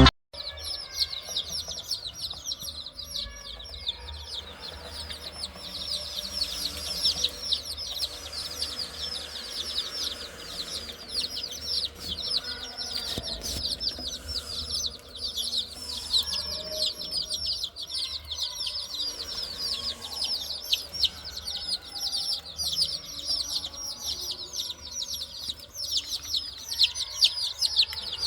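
A crowd of baby chicks peeping without pause, many short, high, falling peeps overlapping.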